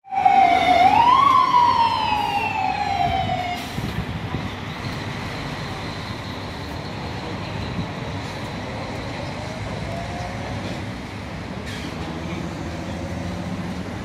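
A siren wails loudly. It dips, swings up in pitch, then slides slowly back down, and it cuts off about three and a half seconds in. Steady traffic noise follows.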